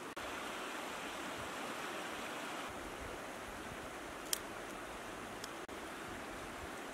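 Steady rushing outdoor background noise, with two sharp clicks about four and five and a half seconds in as charcoal and sticks are handled.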